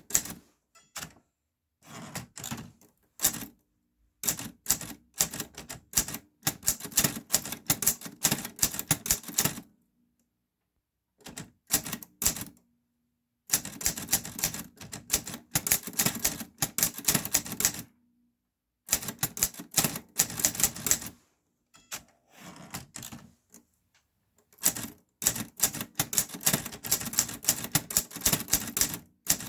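Clover New Star 10S Hangul typewriter being typed on: rapid runs of sharp key strikes, broken now and then by pauses of a second or two.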